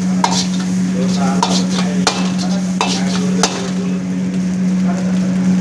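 Fried rice being stir-fried in a steel wok with a long-handled metal spatula: scraping and tossing over a constant sizzle, with about five sharp clanks of the spatula against the wok. A steady low hum runs underneath.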